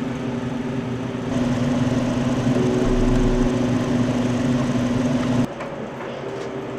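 Steady hum of running machinery with a droning tone, dropping sharply about five and a half seconds in.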